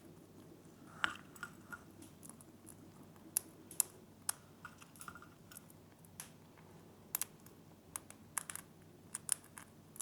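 Irregular sharp clicks and taps, about a dozen, from grey-breasted parakeets' beaks and claws on a backpack bird carrier.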